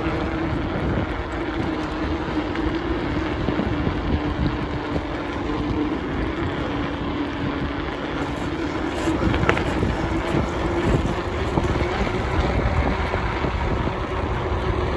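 Steady road rumble of travel along a street, with wind buffeting the microphone and a low hum that drifts slowly in pitch.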